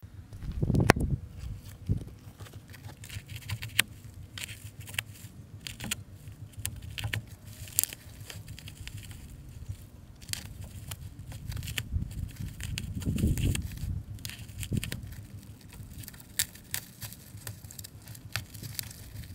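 Plastic wrapping crinkling and tearing in irregular crackles as it is pulled off the hub of a new trailer torsion axle, with a few low bumps about a second in and around two-thirds of the way through.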